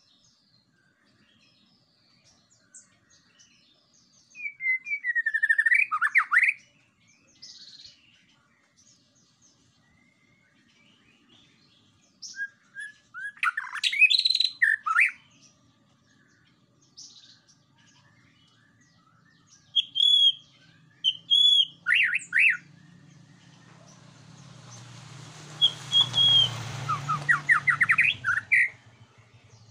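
White-rumped shama (murai batu) singing in separate bursts of loud, sweeping whistled notes and quick runs, with pauses of several seconds between phrases. Near the end a low rumble and rushing noise swells up beneath the song.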